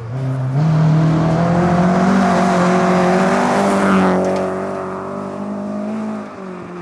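Historic rally car's engine running at high revs as the car passes close, with a rush of tyres and thrown snow that is loudest as it goes by. The engine note then drops in pitch and fades as the car moves away.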